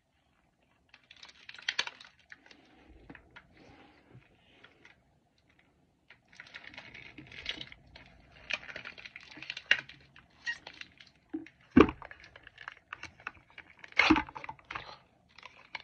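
Hands peeling and working open a plastic Mini Brands toy capsule and its wrapping: intermittent crinkling and small clicks, with two sharper knocks near the end.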